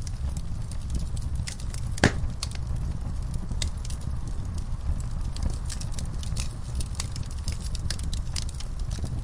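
Wood fire burning in a fireplace, with a steady low rumble and irregular sharp crackles and pops; one pop about two seconds in is louder than the rest.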